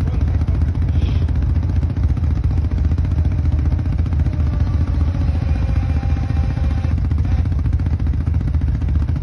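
Quad bike engine running steadily under throttle as the bike sits stuck with a rear wheel in a muddy rut, a faint higher whine rising for a few seconds midway.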